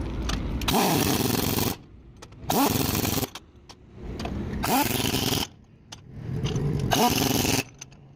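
An impact wrench runs in four bursts of about a second each, tightening bolts as a truck's wheel hub is fitted back on.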